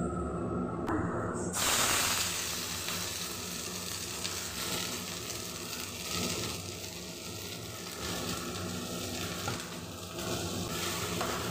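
Chopped okra tipped into a hot iron kadai, sizzling as it starts to fry. The sizzle starts suddenly about a second and a half in and carries on steadily.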